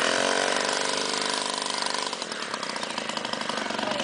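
Monowheel's small engine running, revving up at the start, holding for a couple of seconds, then easing off.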